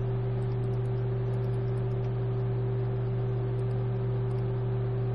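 Steady low hum with an even hiss, unchanging throughout: background electrical hum of the recording.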